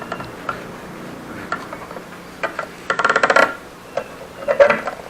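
Metal parts clicking and rattling: a few single taps, then a quick run of rapid, ringing clicks about three seconds in and a shorter run near the end.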